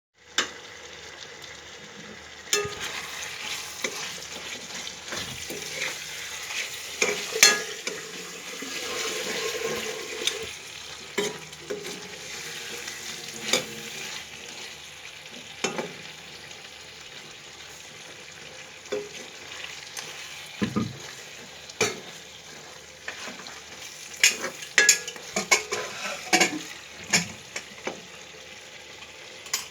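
Chicken frying in oil in a pan with a steady sizzle, while a spatula stirs it and knocks and scrapes against the pan. The knocks come in quick clusters near the end.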